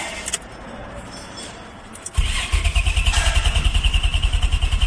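The starter cranks the 2002 Nissan Maxima's V6, kicking in about two seconds in with a rapid, even pulsing, and the engine does not fire. This is the crank-no-start fault tied to its ignition primary signal and crankshaft position sensor codes (P1320, P1335).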